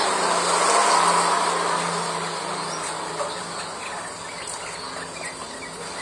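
Caged sunbird giving a few faint, short, high chirps about halfway through, over a steady hiss and a low hum.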